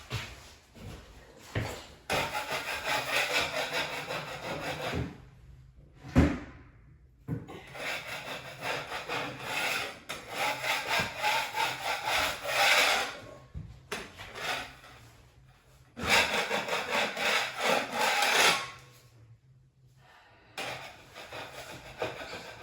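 Hand saw cutting drywall in three runs of quick back-and-forth strokes, with a single sharp knock between the first two runs.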